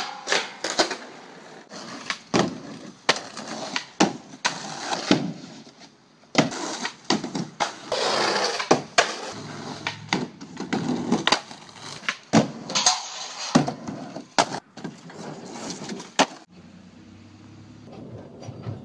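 Skateboard tricks on a street flat bar and a concrete box: tail pops, trucks and deck knocking on the obstacles, wheels rolling on concrete, and landings slapping down, a string of sharp knocks. It turns quieter near the end.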